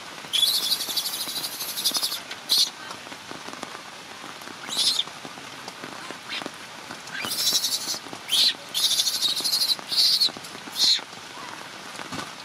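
Steady rain, broken by about eight shrill, high-pitched bursts of up to a second and a half each, the first and longest near the start.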